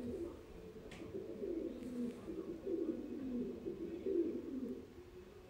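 Pigeon cooing over and over in low, warbling phrases.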